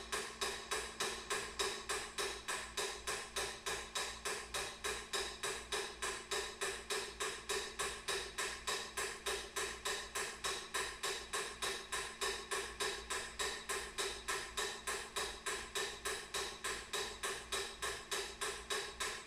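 Metronome ticking at a fast, steady, even beat.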